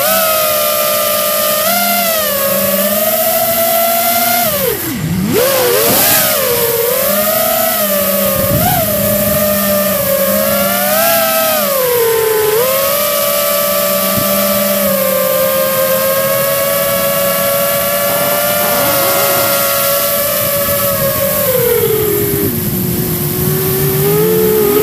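FPV quadcopter's motors and propellers, heard from its own onboard camera: a steady whine whose pitch rises and falls with the throttle. It drops sharply and climbs back about five seconds in, and sags lower near the end before rising again.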